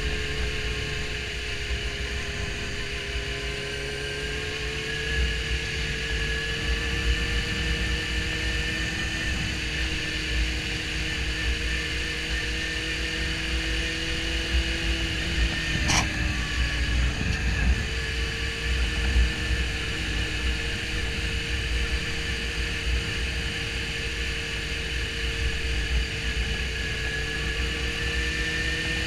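Suzuki GSX-R750's inline-four engine running at a steady cruise, its pitch drifting slowly up and down, with wind buffeting the helmet-mounted microphone. A single sharp click about halfway through.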